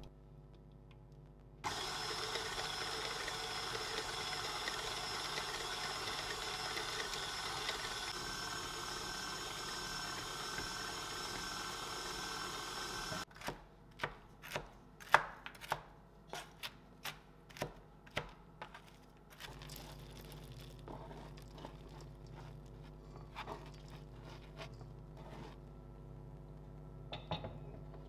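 KitchenAid stand mixer with the wire whisk running steadily on cake batter, starting a second or two in and cutting off abruptly about halfway through. Then a knife chops walnuts on a cutting board in a run of sharp, irregular knocks, with a few fainter taps later.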